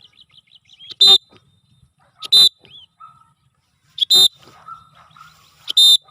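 Cockatiel giving four short, loud, shrill calls about a second and a half apart, with faint chirps of small birds between them.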